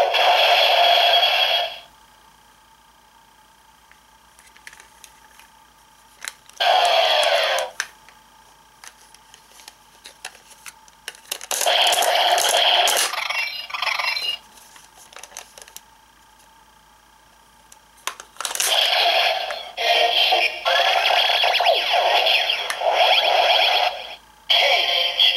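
Hopper Zecter transformation belt toy (Japanese version) playing its electronic voice calls and sound effects in several bursts, one of them a falling sweep about seven seconds in. Between the bursts there are quiet stretches with small plastic clicks as the Zecter is handled and flipped from its Kick Hopper side to its Punch Hopper side.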